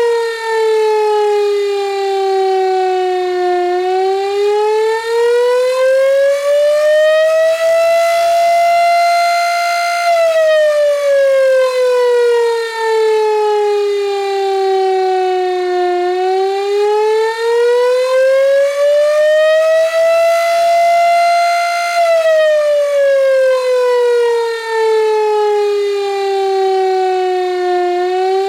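Gryphon 2048 electric siren sounding a wailing attack signal: one steady, loud tone sliding slowly up and down in pitch, about twelve seconds per rise and fall, briefly holding at the top of each rise.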